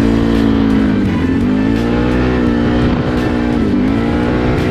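ATV engine running while riding, a steady engine note that dips and picks back up twice, about a second in and again near the end.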